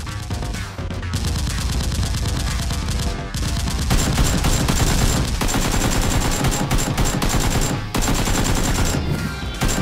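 Rapid automatic gunfire sound effects, laid over Nerf blasters being aimed and fired, with background music underneath. The firing gets louder about four seconds in and breaks off briefly a few times.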